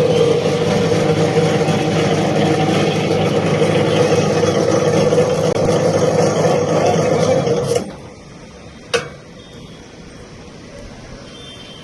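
Electric motor of a mini crane hoist (2 hp, 1440 RPM) running steadily under its winch, then stopping abruptly about eight seconds in, followed a second later by a single sharp click or knock.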